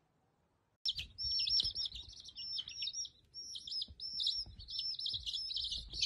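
Young chicks peeping: a steady stream of high, rapid peeps that starts abruptly about a second in.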